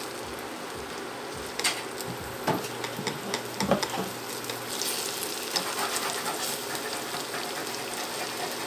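Sliced red onion sizzling as it sautés in hot oil in a ceramic-coated frying pan, stirred with a wooden spatula. A few sharp knocks and scrapes of utensils against the pan come in the first few seconds.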